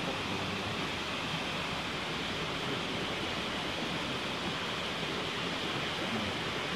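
Steady rush of flowing river water, an even hiss that holds without a break.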